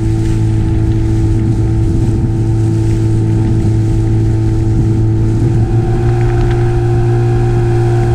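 Outboard motor of an inflatable boat running steadily under way, its note rising slightly about six seconds in.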